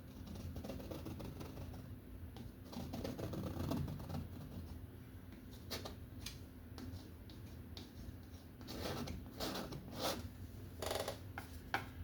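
Paint being worked onto a canvas: scattered short scrapes, taps and creaks, growing busier over the last few seconds.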